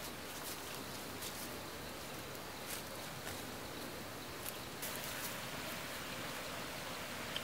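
Light rustling of leafy undergrowth and a bundle of dry sticks as someone walks through brush, with a few faint crackles over a steady outdoor hiss.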